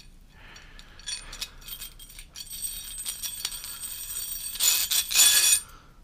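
Steel thrust bearings clinking and ringing against a galvanized steel pipe as they are slid onto it, with a louder metal-on-metal scrape near the end.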